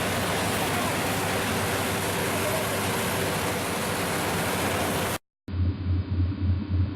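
Paddy combine harvester running steadily, its engine hum buried under a dense, even noise. About five seconds in the sound cuts out briefly, then resumes duller, with a low engine hum that swells and fades several times a second.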